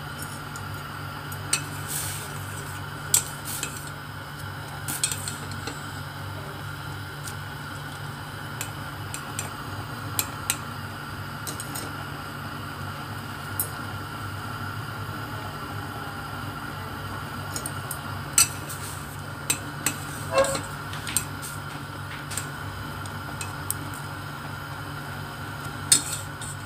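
Sharp, scattered clinks of chopsticks knocking against a stainless-steel pot while instant ramen noodles boil in it, over a steady hum.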